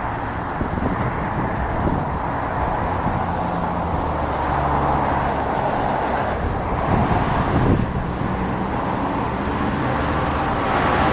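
Boeing 777-200's twin turbofan jet engines at takeoff thrust: a steady, dense jet noise with a faint high whine, growing louder near the end.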